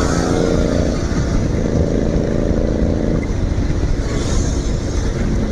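Royal Enfield GT 650 parallel-twin engine running under way through an aftermarket SC Project exhaust, a steady deep exhaust note that eases back about three seconds in.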